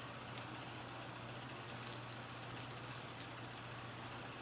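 Quiet background noise: a steady low hum and a high, even hiss, with a couple of faint small clicks about two and a half seconds in.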